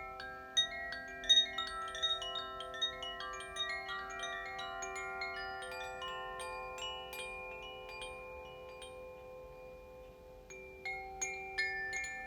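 Koshi chimes of the water (Aqua) and earth (Terra) element tunings, swayed so that their clappers strike a quick, irregular cascade of bright notes over long, overlapping ringing tones. The strikes thin out and the ringing fades past the middle, then a new flurry of strikes comes in near the end.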